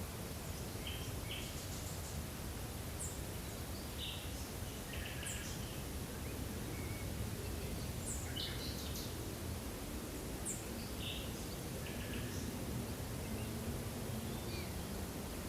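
Forest ambience: several small birds giving short chirps and calls, one repeating a brief high note every few seconds, over a steady low rumble of background noise.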